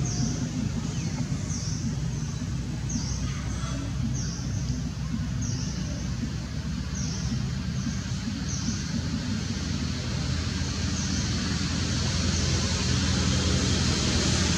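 Outdoor forest ambience: a steady low rumble with a short, high, falling chirp repeated about once a second. A high hiss grows louder near the end.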